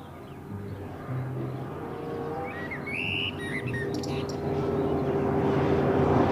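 Car-carrier semi-truck's engine and tyres, growing steadily louder as it approaches, with a few bird chirps around three seconds in.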